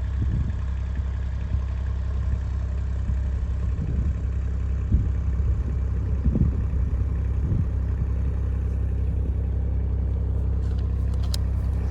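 A vehicle engine running steadily with a low, even hum, and a few short louder sounds over it about five and six and a half seconds in.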